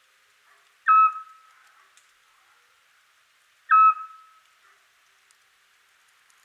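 Eurasian scops owl giving its short, steady whistled call twice, about three seconds apart, each note trailing off briefly. It is the male's repetitive territorial call, advertising his territory and seeking a mate.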